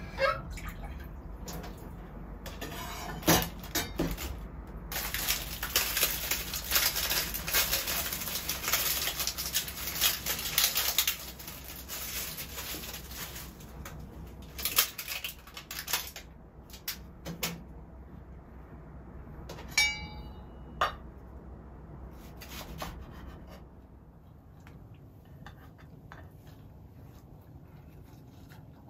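Kitchen prep sounds: several seconds of dense rattling and splashing, then scattered knocks and clinks of dishes, with one clear ringing clink about twenty seconds in. The last few seconds are quieter.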